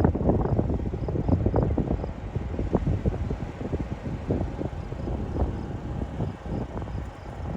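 Strong, gusty wind buffeting the microphone: a loud, low, continuous noise with many quick surges.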